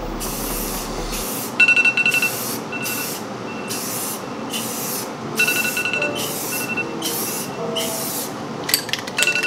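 Aerosol rattle can of Rust-Oleum 2X clear coat spraying a sanded plastic headlight lens in short passes: about nine separate hisses of half a second or so, some with a thin whistle in them.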